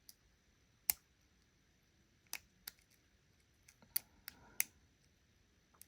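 Sharp, light metallic clicks of a lock pick and tension wrench working the pin stack of a custom-made pin-tumbler challenge lock, as pins set and drop back. About nine clicks at irregular intervals, with a quick cluster a little past the middle.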